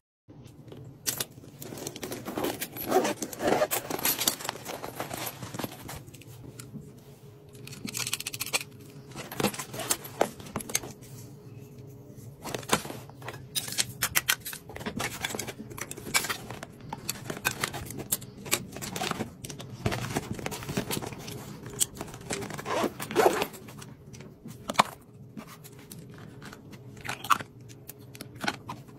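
Small plastic bottles, caps and containers being handled and packed into a zippered toiletry bag: irregular clicks, taps and scrapes, with a faint steady low hum underneath.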